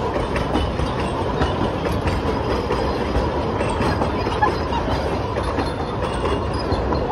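Passenger carriages of a narrow-gauge heritage steam train rolling past close by, a steady rumble with the wheels clattering over the rail joints.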